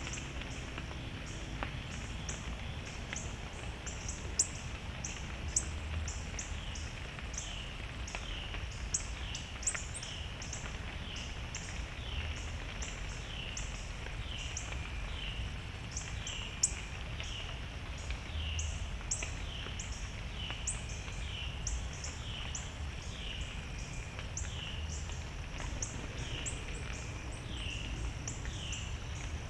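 Woodland evening ambience: a steady chorus of short, high chirps repeating about once a second, with quicker high pulsing behind it, over a low rumble. A few sharp clicks stand out, the loudest about four seconds in and again near the middle.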